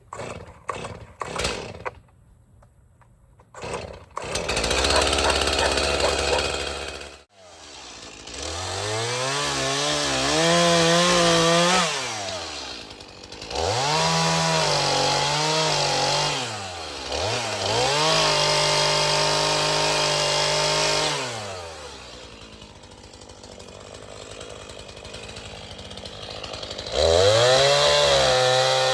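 Chainsaw running, revved up to full speed in several bursts of a few seconds each and dropping back to a lower idle between them. A few clicks and a short rough stretch come before the first rev.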